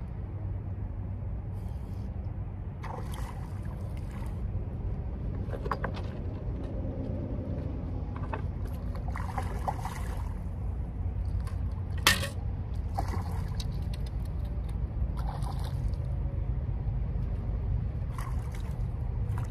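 Water lapping and trickling over a steady low rumble, with scattered short splashy or rustling noises and one sharp click about twelve seconds in.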